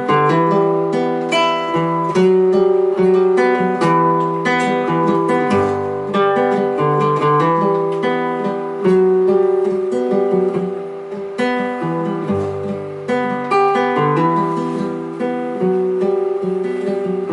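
Acoustic guitar played solo: a rhythmic chord accompaniment with chords changing every second or so, an instrumental passage between sung verses.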